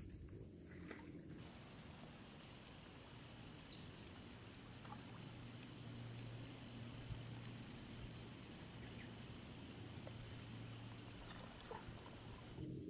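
Faint outdoor nature ambience: a steady high-pitched insect buzz with a run of quick chirps about two seconds in, over a low hum. It starts suddenly about a second in.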